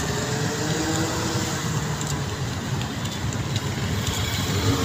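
Steady road traffic passing close by: car and motorbike engines with tyre noise.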